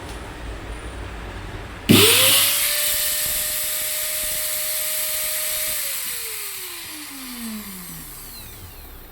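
Hitachi 4-inch angle grinder switched on about two seconds in: the motor spins up almost at once to a steady high whine with a loud airy hiss. After about four seconds it is switched off and winds down with a falling whine. This is a test run after its bearings have been changed.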